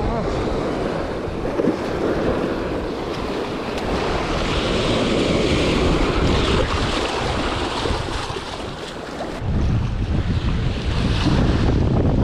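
Wind buffeting the microphone over a steady rush of moving water, the wind rumble growing heavier about three-quarters of the way through.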